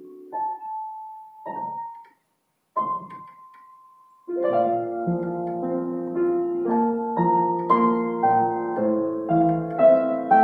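Yamaha U1E upright piano being played. A few single high notes ring out with a brief break in the sound about two seconds in. From about four seconds in, fuller playing follows, with chords over bass notes.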